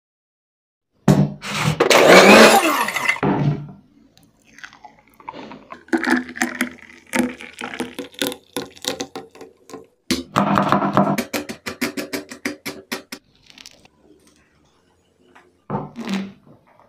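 Milk poured in a stream into a steel blender jar, loudest about a second in. Then a thick milkshake is poured into a glass in a run of splashes and gurgles, and a short knock near the end as the glass is handled on the wooden board.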